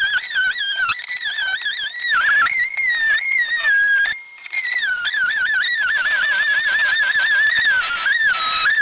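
A high, shrill whistling that warbles quickly up and down in pitch, with a short break about four seconds in.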